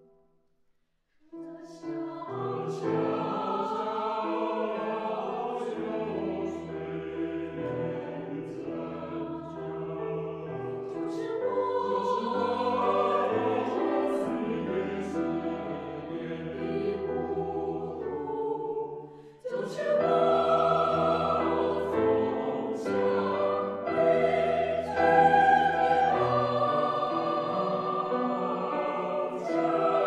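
Mixed choir of men's and women's voices singing a Chinese-language choral song with piano accompaniment. The music pauses for about a second at the start and dips briefly again about two-thirds of the way through before the next phrase.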